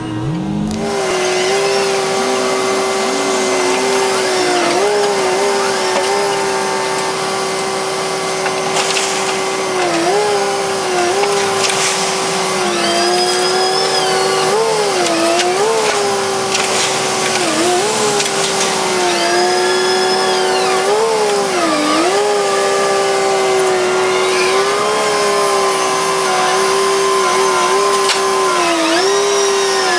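Excavator running at high revs with a steady whine, its pitch sagging briefly every couple of seconds as the hydraulics take load, with a few knocks from the work.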